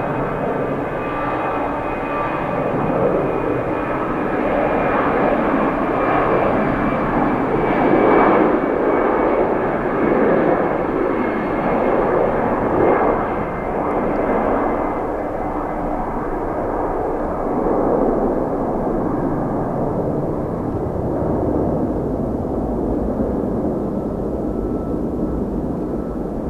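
Twin-engine jet airliner taking off at full thrust: a continuous jet engine noise with a faint high whine. It is loudest in the first half, then grows duller as the high end fades while the aircraft climbs away.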